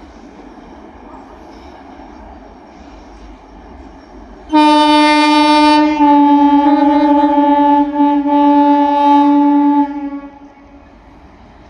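Indian Railways WAP-4 electric locomotive's air horn sounding loudly: a short blast about four and a half seconds in, then straight into a long blast of about four seconds that drops slightly in pitch, over a steady background noise.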